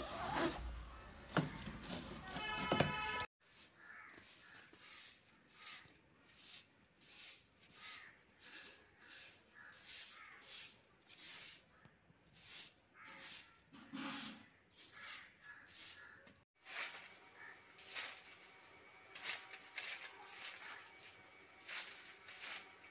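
Repeated swishes of a long bristle broom sweeping bare earth and dry leaves, about two strokes a second. The sweeping follows a brief, louder pitched sound in the first three seconds.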